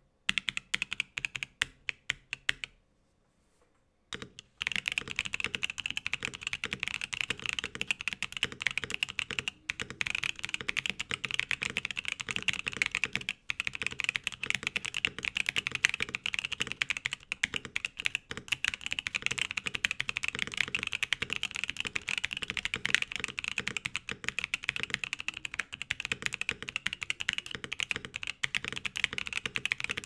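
Typing on an RNDKBD PLA60 60% gasket-mount mechanical keyboard with a POM plate, no case or plate foam, and stock Gazzew Boba U4T tactile switches. A few separate keystrokes come first, then a short pause about three seconds in, and after that steady, fast typing.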